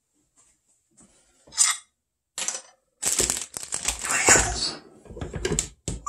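Irregular clicks, rattles and rustling from an African grey parrot on its perch, sparse at first and then a dense run from about three seconds in.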